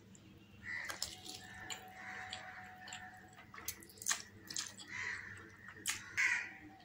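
Masala Maggi instant noodles slurped off a fork into the mouth: a run of wet, irregular sucking slurps broken by sharp lip smacks, the loudest slurp near the end.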